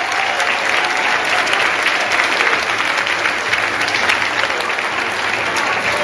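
Audience applauding, with steady clapping from a seated crowd.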